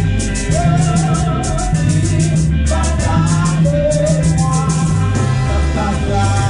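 Gospel worship music: voices singing a praise song over an accompaniment with a moving bass line and a quick, even percussion beat ticking about four or five times a second.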